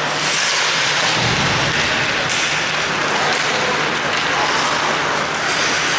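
Ice hockey game in play in a rink: a steady hiss of skates on the ice and rink noise, with a low hum and voices calling out.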